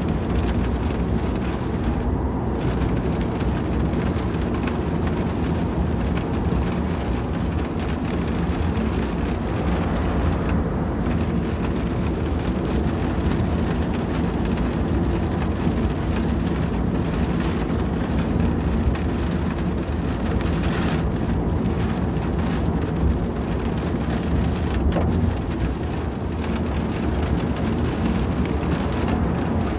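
Car driving through rain on a wet road: a steady low rumble of the car and its tyres with the hiss of rain.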